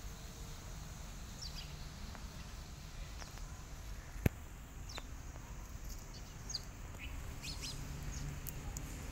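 Small birds chirping faintly in the background, short high calls scattered through, over a low outdoor rumble. A single sharp click sounds about four seconds in.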